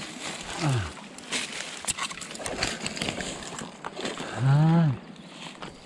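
Footsteps and rustling through dry leaves and brush on a mountain slope, with many small crackles and snaps. A man makes two short wordless vocal sounds, a brief falling grunt about half a second in and a longer rising-then-falling one, the loudest sound, a little past four seconds in.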